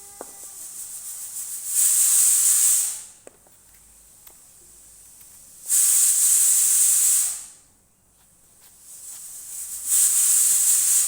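Steam hissing in three loud bursts, about four seconds apart. Each burst swells up and dies away again.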